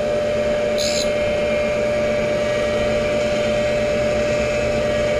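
Tool and cutter grinder running, its wheel spindle giving a steady tone over motor noise, with a brief high hiss about a second in as the wheel lightly grinds a tooth of a milling cutter held on its arbor.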